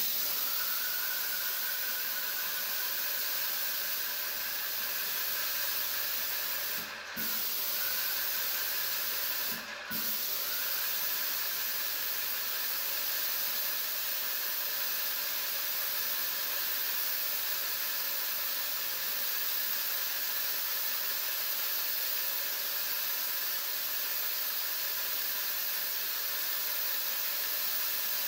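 Airless paint spray gun, fed by a Graco 395 sprayer, hissing steadily as it atomises paint onto the trim. It breaks off briefly twice, about seven and ten seconds in, as the trigger is let go.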